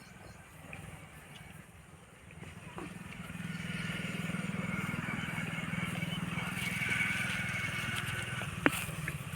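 A motor vehicle's engine running, growing louder from about three seconds in and staying up for the rest of the time. There is one sharp click near the end.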